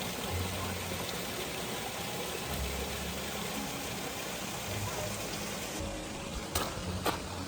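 Creek water rushing steadily, with background music and two sharp clicks near the end.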